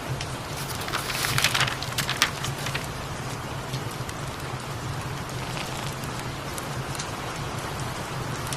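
Steady rain, with a low steady hum underneath. About a second in comes a short cluster of crackles and rustles, lasting a second or so.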